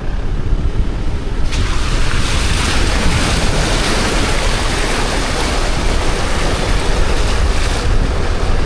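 Loud wind buffeting the microphone over the rush of surf: a steady rushing noise with a heavy low rumble that turns brighter and hissier about a second and a half in.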